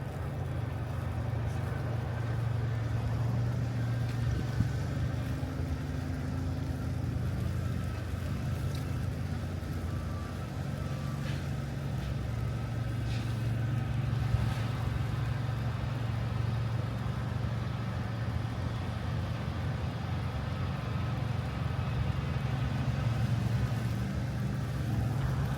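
Steady low rumble of city street traffic: vehicle engines running, with a couple of faint clicks.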